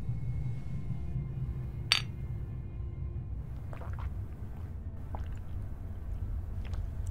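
Two drinking glasses clinking together in a toast: one sharp chink about two seconds in, followed by a few faint small clicks of glass, over a steady low hum.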